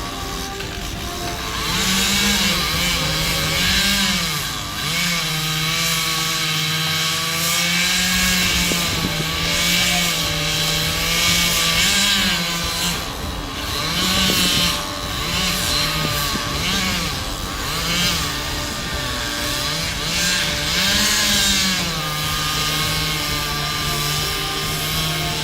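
Chainsaw engine running at a high, steady pitch and revved up briefly again and again, with the pitch rising and falling back each time.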